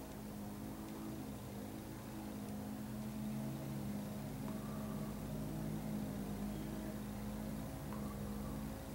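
A steady low mechanical hum made of several held tones, some of which shift slightly in pitch.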